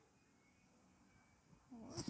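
Near silence: faint room tone, with a woman's voice starting to speak near the end.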